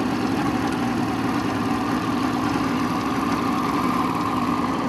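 Small boat's outboard motor running at a steady speed, moving the boat through the water.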